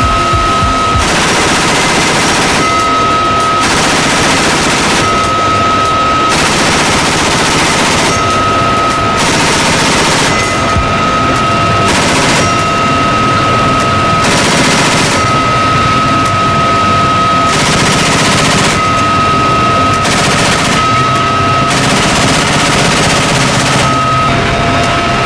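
GAU-21 .50-calibre machine gun firing from the door of a UH-1Y Venom helicopter in repeated short bursts, about a dozen, each a second or less and a second or two apart. A steady high whine from the helicopter runs beneath the gunfire.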